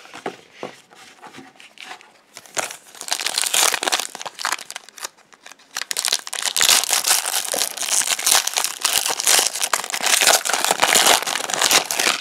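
Foil wrapper of a trading card pack crinkling as it is pulled open by hand, in bursts from about two and a half seconds in and loudest and almost unbroken in the second half. A few light taps of cards being handled come before it.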